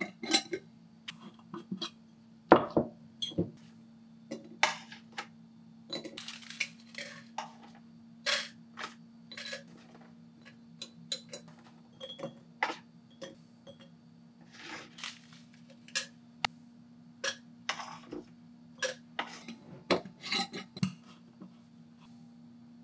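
Dried lotus root slices clicking and rattling against glass as they are dropped by hand, a few at a time, into glass mason jars, with occasional sharper taps of glass and lid. A steady low hum runs underneath.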